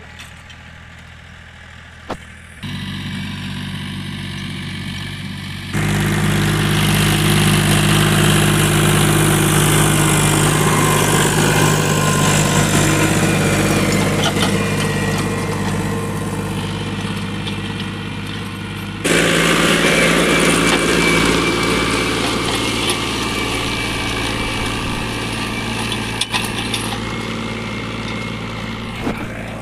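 Diesel tractor engine running steadily under load while pulling a 7x7 disc harrow through field stubble. It comes in a couple of seconds in, is loudest from about six seconds, and drops back somewhat around nineteen seconds.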